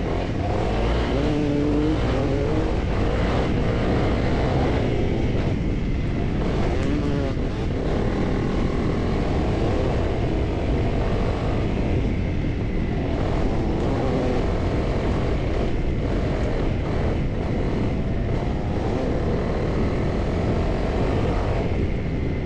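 Honda CRF300L's single-cylinder four-stroke engine running while riding off-road, its pitch rising and falling with the throttle over a steady low rumble.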